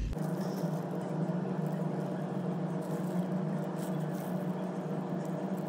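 A steady mechanical hum with several constant low tones, beginning abruptly right at the start and holding level throughout.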